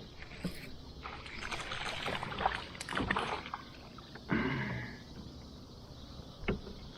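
Irregular splashing and knocking around a plastic kayak, busiest in the middle, then a short low pitched sound about four seconds in and a sharp click near the end.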